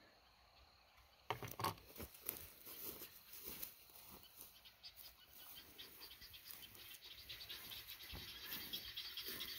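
Footsteps swishing and crunching through dry field grass, starting about a second in and carrying on irregularly. Rapid high chirping from the field grows louder behind them.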